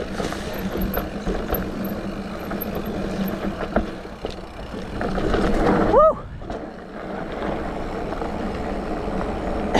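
Mountain bike rolling fast down a dirt trail: steady tyre and wind rush with scattered knocks and rattles, building to a louder rush about five seconds in, broken by the rider's short whoop at about six seconds.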